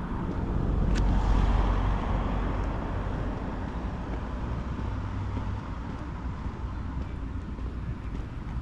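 City street traffic: a motor vehicle passes, swelling to its loudest about a second in, over a steady low rumble of road noise. A single sharp click falls about a second in.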